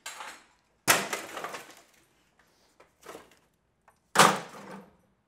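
Rusted metal cabinet panel of a drinking fountain being wrenched loose and pulled off: four rough clattering scrapes, the loudest about a second in and another near the end.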